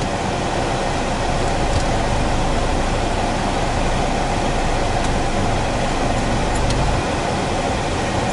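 Steady engine and road noise heard inside a car's cabin as it drives slowly along a street.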